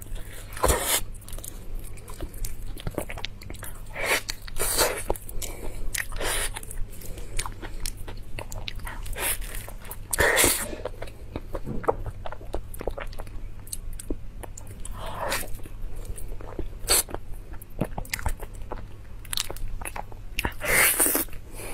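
Biting and chewing of soft durian flesh, with louder wet mouth sounds every few seconds over a steady low hum.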